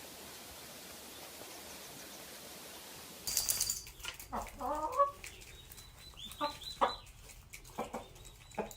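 Faint steady hiss for about three seconds, then a sudden brief loud noise followed by a chicken clucking in a series of short calls.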